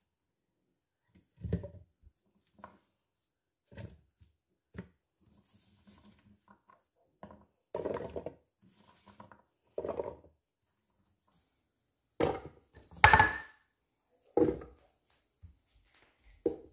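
Chunks of grapefruit, carrot and ginger dropped by hand into a plastic blender jug: a dozen or so separate, irregular thuds and knocks, the loudest about 13 seconds in.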